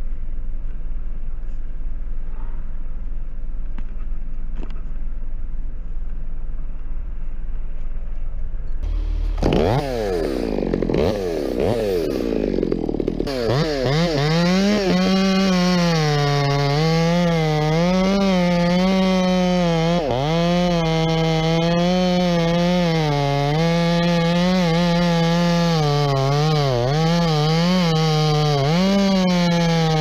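A low steady engine drone, then a chainsaw starts up about nine seconds in and revs. From about thirteen seconds the saw runs at high throttle cutting into the tree trunk, its pitch dipping and recovering over and over as the chain bites into the wood.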